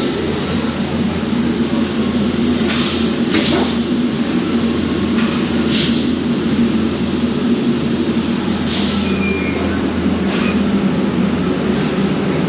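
Steady drone of metal-fabrication factory machinery, with five short hissing bursts of air spread through it.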